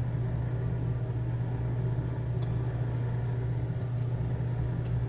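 Steady low hum of room background noise, with a faint tick about two and a half seconds in.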